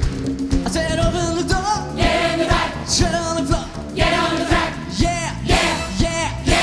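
Live band playing an upbeat pop-rock song with drums and electric bass, with singing coming in about a second in.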